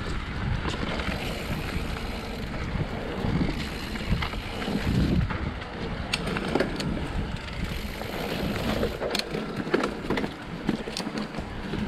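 Mountain bike riding a dirt trail: wind buffeting the microphone over the rolling tyres, with sharp clicks and rattles of the bike over rough ground in the second half.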